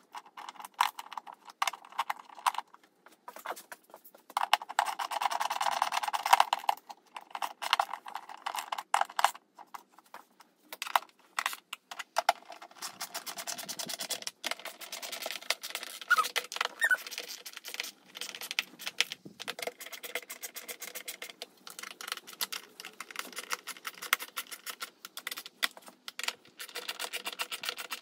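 Hand ratchet clicking in quick runs as the screws of a plastic motorcycle airbox cover are driven in, with clatter and rubbing of the plastic cover being handled.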